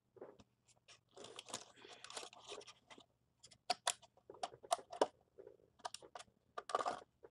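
Takeaway food packaging being handled and opened: paper rustling for a couple of seconds, then a run of sharp crackles and clicks.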